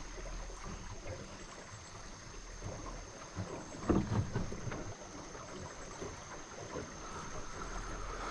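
River current rushing and lapping around a small boat in rapids, with wind buffeting the microphone. A brief bump about four seconds in.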